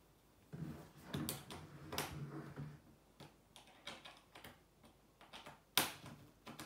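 Plastic and wooden parts of a baby changing table knocking and clicking as it is assembled by hand: scattered taps and clicks, the loudest a sharp knock near the end.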